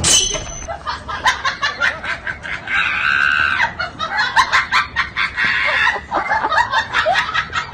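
A quick, irregular run of short clucking animal calls, one after another.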